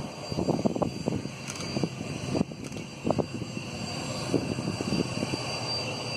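Twin turbofan engines of a Cessna Citation 500 running with a steady high whine as the jet taxis and turns onto the runway, over an irregular low rumble.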